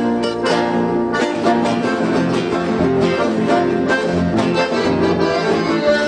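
Piano accordion playing held, sustained notes over plucked acoustic guitar accompaniment.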